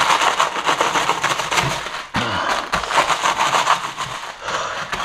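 Plastic instant-ramen packets crinkling and the dry noodle blocks inside crunching and breaking as a long knife hacks through them on a cutting board: a dense, continuous run of crackles and crunches.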